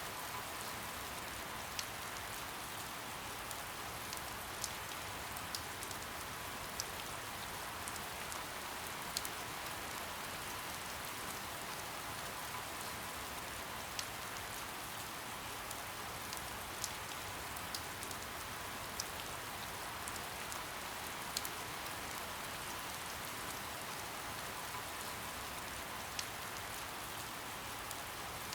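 Steady soft rain: an even hiss of rainfall with single drops ticking sharply on a surface every second or two.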